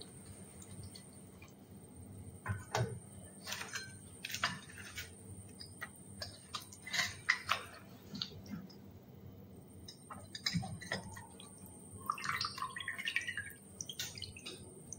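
Faint, irregular wet squelching and dripping as a fried chonga (layered puri) is pressed by hand into a steel bowl of sugar syrup and lifted out, syrup dripping back into the bowl.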